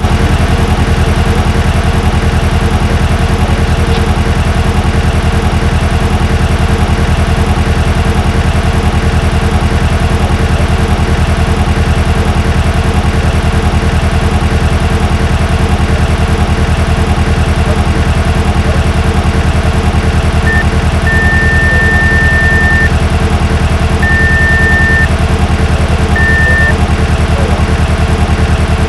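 Simulated car engine idling steadily and loudly, running rough with a misfire from an ignition coil circuit fault (code P0354). A few short high beeps sound about two-thirds of the way in.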